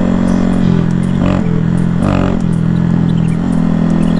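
Honda Grom's 125cc single-cylinder engine running steadily at low road speed, its note shifting slightly, with gravel ticking under the tyres on a loose gravel road.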